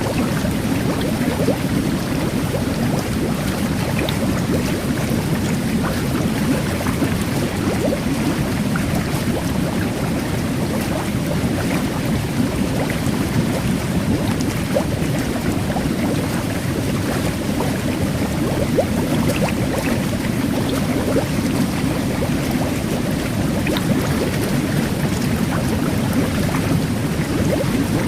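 Jet bath water churning steadily, a low bubbling rush, with a fine crackle of tiny carbonated micro-bubbles fizzing over it.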